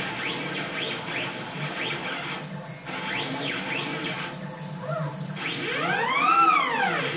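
Stepper motors of a GarageWorX CNC router whining in rising-then-falling pitch sweeps as the axes speed up and slow down on a run of short moves, over a steady low hum; one longer, louder sweep near the end. The machine is dry running a program, not cutting.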